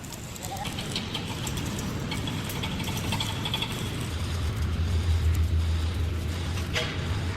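Machinery running with a steady low hum that grows louder about four seconds in, with light metallic clicks and rattles and a sharper knock near the end.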